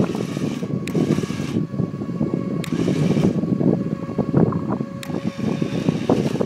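Wind buffeting the microphone over a steady machine hum with a faint whine, as a stuck center-pivot irrigation tower is dragged out of the mud.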